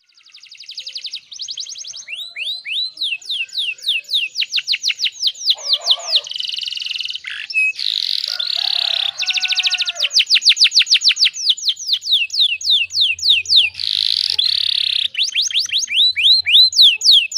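Domestic canary singing a long continuous song: rapid trills of repeated down-slurred notes, about ten a second, broken by several buzzy rolling phrases. It starts softly and grows louder over the first couple of seconds.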